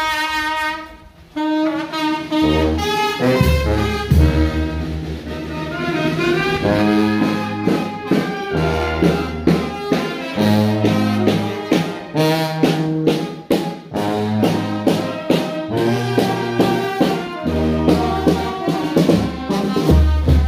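Brass band music: a held note, a brief break about a second in, then wind instruments play a tune over a low bass line with regular percussion hits.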